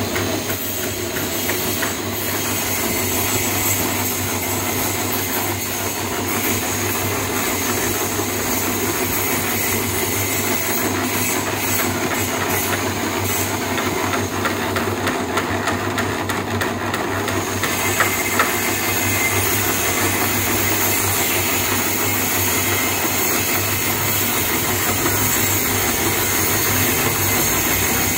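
Portable drum concrete mixer running, a steady mechanical drone.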